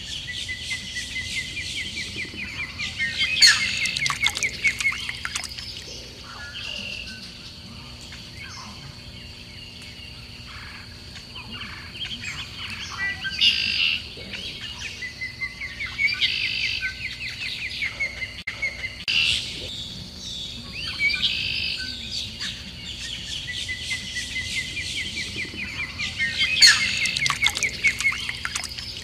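Small songbirds chirping and singing, with rapid trilled phrases recurring every few seconds over a thin steady high tone.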